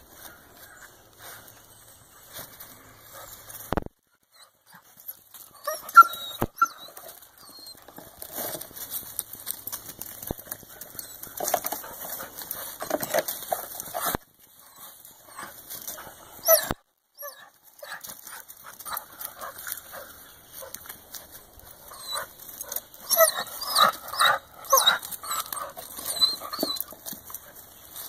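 Dogs whining and yipping excitedly in short spells, with scratching and rustling in dry leaves, as they hunt a chipmunk hiding under a log. The loudest calls come about six seconds in and in a cluster near the end.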